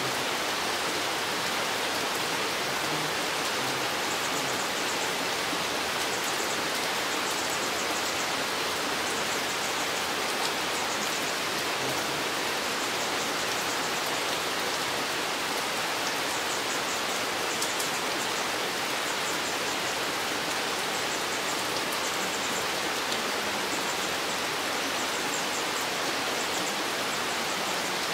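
Steady rain falling in a spruce forest: an even, unbroken hiss of drops, with a faint rapid high-pitched ticking that comes and goes.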